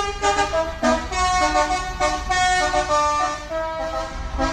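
Bus 'telolet' basuri multi-trumpet air horn playing a quick melody, its notes stepping up and down every fraction of a second, over a low engine rumble.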